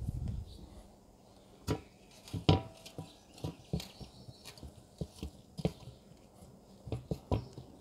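Hands packing and patting wet mud around the rim of an upturned aluminium pan that covers a tandoor, sealing it: a low thump at the start, then about a dozen irregular taps and knocks, one with a brief metallic ring from the pan.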